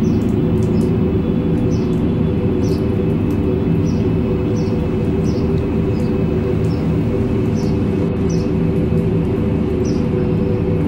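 Short high bird chirps about once a second over a steady, loud low drone.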